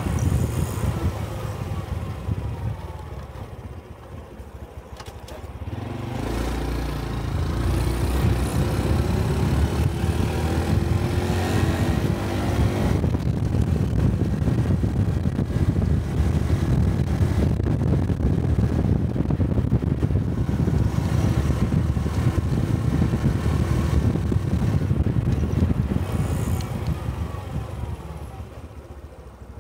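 Honda 125 cc Cub motorcycle's single-cylinder engine heard from the rider's position while riding. The engine note falls and quietens as it slows a couple of seconds in, climbs again around six seconds as it accelerates, runs steadily, then falls away near the end as it slows again.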